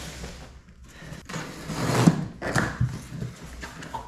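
Cardboard boxes being handled: an inner box slid out of an outer box and its flaps pulled open, with cardboard scraping and rustling, loudest about two seconds in.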